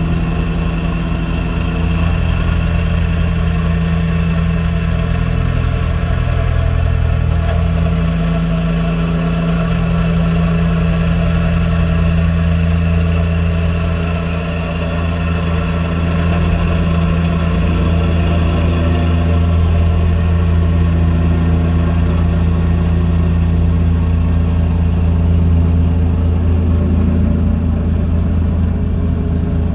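Mini excavator engine running steadily, its note shifting slightly about eight seconds in and again near the end.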